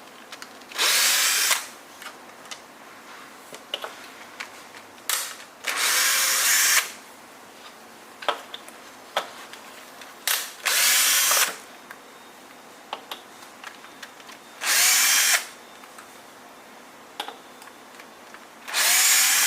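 Power drill driving out the deck-plate screws of an electric scooter: short bursts of the motor spinning up, each under a second, about five times with a few brief blips, and small clicks of handling in between.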